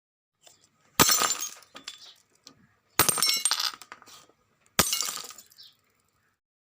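Glass smashing three times, about two seconds apart, each sharp crash followed by a brief tinkle of falling shards.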